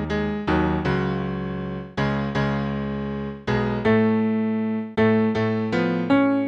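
Piano-voiced keyboard playing a slow chordal accompaniment to a song, chords with low bass notes struck every half-second to second and each left to fade.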